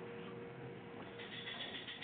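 A struck hanging metal object rings on with a steady tone and fades out. About a second in comes a quick run of light, bright clinks as suspended found objects are set rattling against each other by hand.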